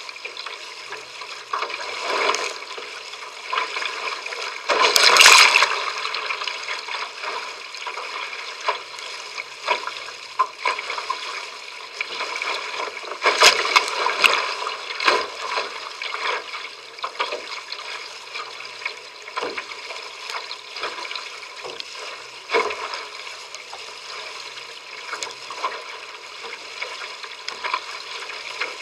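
Water rushing and splashing along a sailing trimaran's outrigger hull under way. Irregular surges come through, with the loudest slaps about five seconds in and again around thirteen to fifteen seconds in.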